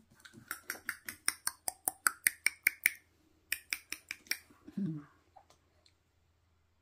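Rapid tongue clicking: two quick runs of sharp, pitched clicks at about seven a second, with a short break between them, followed by a brief low voice sound.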